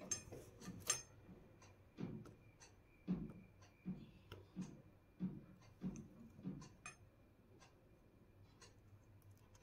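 Faint small clicks and soft taps of a hand transfer tool and fingers working stitches onto the metal needles of a flatbed knitting machine, about one a second, stopping near the end.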